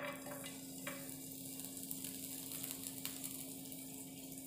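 Chopped ginger and garlic sizzling in hot oil in a frying pan, starting the moment they are tipped in, with a few sharp pops.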